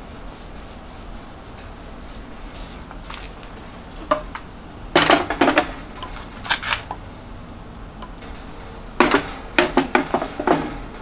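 Short bursts of clattering knocks and clicks as a small paint roller is handled against its paint tray and the hive box. One cluster comes about five seconds in and another about nine seconds in, over a steady high-pitched hum.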